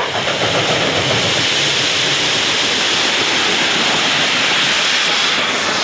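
1916 Baldwin steam locomotive No. 734 passing close by, with a loud, steady hiss of steam venting from its open cylinder cocks.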